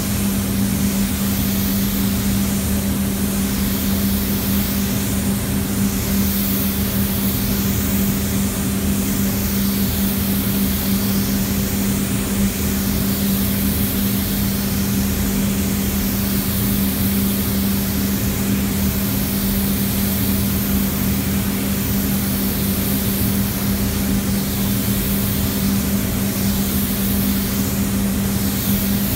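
Rongpeng R802 gravity-feed air spray gun hissing as it lays paint on a car panel, the hiss swelling and fading with each pass, over the steady hum of the spray booth's ventilation.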